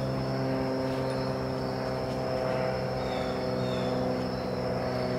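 A steady low hum runs without change, with a constant high insect-like drone over it and a few short falling chirps.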